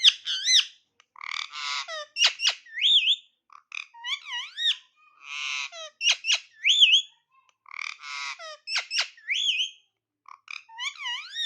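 Ringneck parakeet calling: a run of high, gliding whistles mixed with harsh, buzzy squawks, the same phrase repeated about three times.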